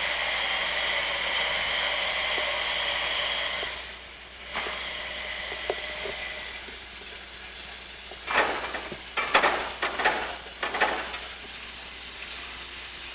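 Air motor of an air-powered railway turntable hissing steadily as it turns a steam locomotive, cutting off about four seconds in. A fainter hiss follows, then a series of short, loud hissing bursts from about eight to eleven seconds.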